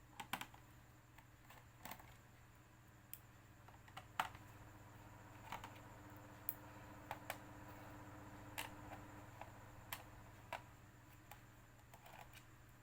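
Scattered small clicks and ticks of a screwdriver undoing the bottom-case screws of a plastic laptop, spaced irregularly about a second apart, over a faint steady low hum.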